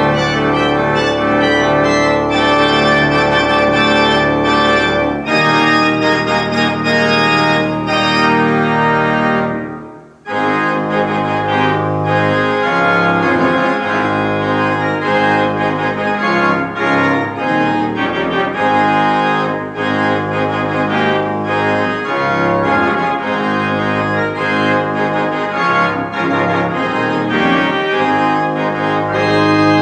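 Church organ playing held chords over a deep pedal note. The sound fades almost away just before ten seconds in, then the organ starts again with more frequently changing notes.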